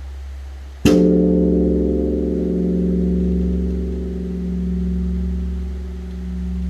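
Large Korean Buddhist temple bronze bell (beomjong) struck once about a second in, rung for the dawn service. The deep hum of the previous stroke carries under it, and the new stroke rings on long, swelling and fading slowly.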